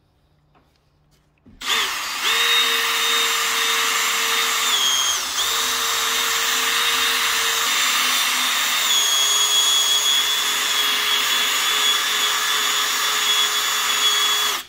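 Milwaukee M18 brushless cordless drill spinning a foam polishing pad against car paint to buff out a scratch. It starts about a second and a half in, runs steadily with a high motor whine that dips briefly a few seconds in and settles a little lower partway through, and stops abruptly near the end.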